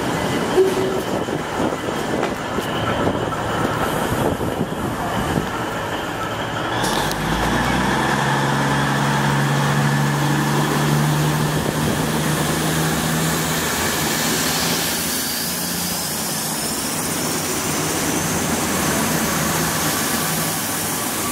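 V/Line VLocity diesel multiple unit moving along the platform. Its diesel engines drone steadily through the middle, then a rising rush of wheels and air builds as the carriages slide past close by.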